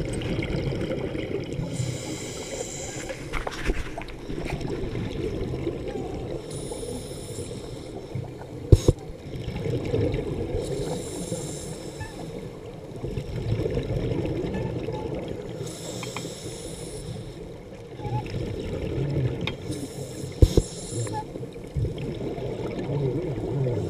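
Scuba regulator breathing heard underwater: bursts of exhaled bubbles hiss about every four to five seconds over a steady low rumble. Two sharp knocks, one about a third of the way in and one near the end.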